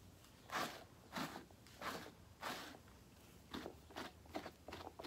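A brush being stroked through the faux fur of a fursuit paw. There are four slower strokes, then a quicker run of shorter strokes in the second half.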